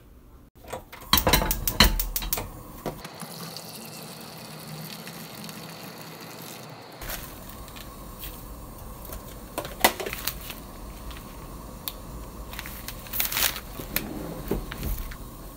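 Water heating to a boil in a stainless steel pot: a steady hiss and bubbling, with a few knocks and clinks against the pot. It starts after a quick run of sharp clicks in the first few seconds.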